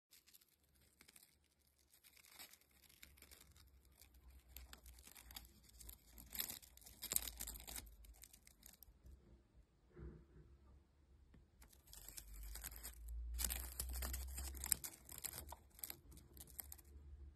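Crisp, irregular crackling and rustling of a green bush cricket feeding on a dragonfly, the crunch of chewing mixed with the rattle of the prey's fluttering wings. It comes in two long spells with a lull in the middle.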